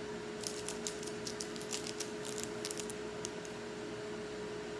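Stove exhaust fan running with a steady hum. A run of small, quick crackling clicks sounds over the first three seconds or so.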